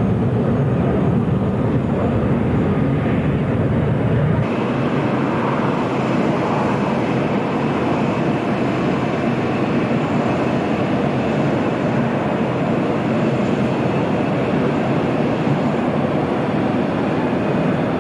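Jet airliner engine noise throughout. First the low rumble of a three-engined jet airliner climbing away. Then, after a sudden change about four seconds in, the steadier, higher rushing noise of a Boeing 737-300's CFM56 turbofans at taxi power.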